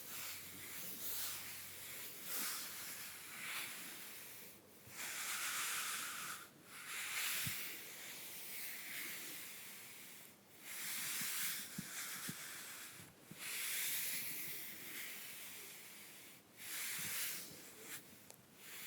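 Soft makeup brushes swept lightly across the bare skin of a back: a series of airy, hissing strokes, one every couple of seconds, each swelling and fading with short pauses between.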